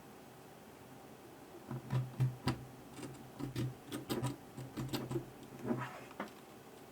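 Small parts and tools being handled in scooter dashboard work: an irregular run of sharp clicks and taps, several a second, starting about two seconds in over a low hum.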